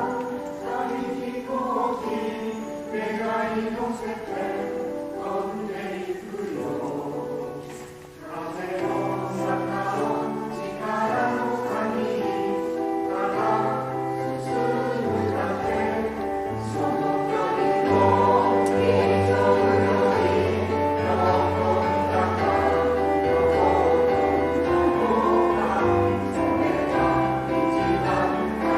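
Choir singing a song in harmony, with sustained notes; it dips briefly about eight seconds in and grows louder about eighteen seconds in.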